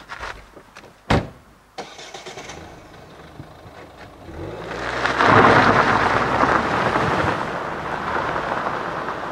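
A car door slams shut about a second in and the engine starts. The estate car then pulls away hard on a gravel road, its tyres crunching and throwing gravel, loudest from about five seconds in.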